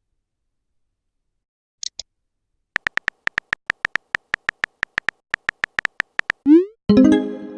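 Phone-chat app sound effects: a short high blip, then a rapid run of keyboard tap clicks, about seven or eight a second, for roughly three and a half seconds. A rising swoosh and a bright electronic chime follow near the end, the message-sent sound.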